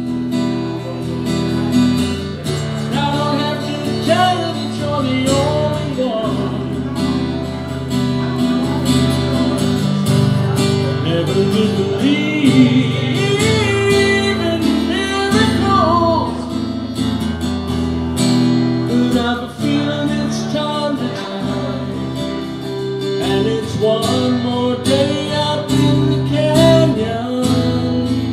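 Acoustic guitar playing steady chords, with a man singing a few melodic phrases over it.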